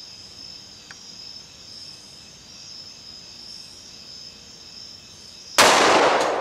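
A steady, high insect drone from night insects, then about five and a half seconds in a single loud shot from a Glock 20SF pistol firing a 10mm Auto round, its report ringing and fading.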